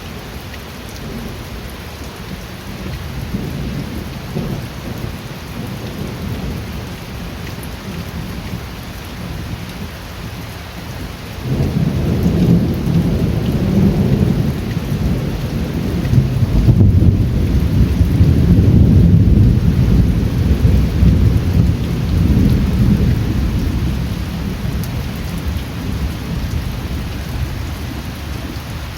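Steady rain with a long rolling rumble of thunder. The thunder breaks in suddenly about a third of the way through, swells to its loudest around two-thirds in, then slowly dies away.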